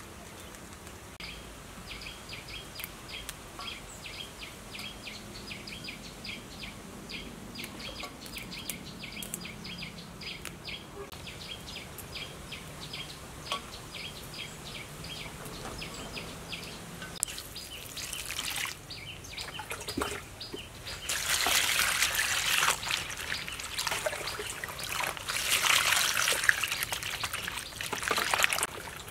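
Hands swishing and splashing climbing wattle shoots in a basin of water, starting about two-thirds of the way in and loudest near the end. Before that, a steady run of short high chirps, about two or three a second.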